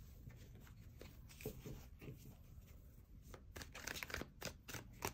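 Tarot deck being shuffled in the hands: faint flicks of cards at first, then a quicker run of sharp card snaps in the second half.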